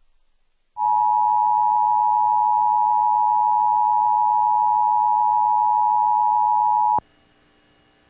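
Emergency Alert System attention signal: the steady two-tone 853 and 960 Hz alert, starting about a second in and cutting off sharply about six seconds later. It heralds a broadcast emergency message, here a Severe Thunderstorm Watch.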